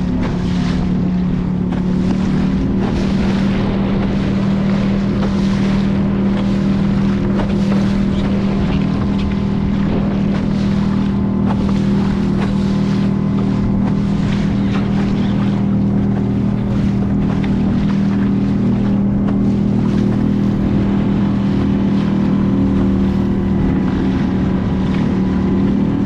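Motorboat engine running steadily at a constant speed, under wind buffeting the microphone and water washing against the hull on choppy water.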